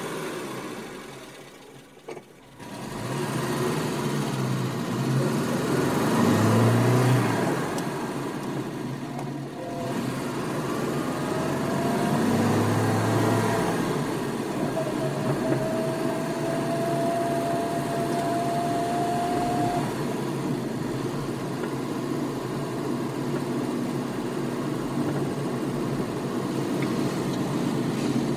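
Sports car engine heard from inside the cabin, pulling away and accelerating with rising pitch, with a break about ten seconds in like a gear change. It then settles into a steady drive, with a thin whine that climbs slightly in pitch for a few seconds.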